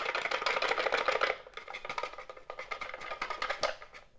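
A stack of cardboard trading cards scraping and rustling against a clear plastic box as fingers try to work loose a stuck sleeved card: a dense run of quick scratchy rubs, louder over the first second or so, then softer.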